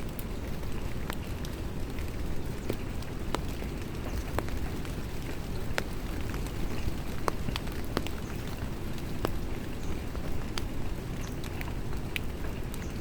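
Rain falling steadily, with separate drops ticking at irregular moments over a steady low rush.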